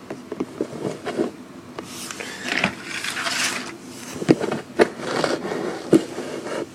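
Slime being mixed: irregular sticky clicks and pops, with stretches of scraping in between, several sharp pops in the second half.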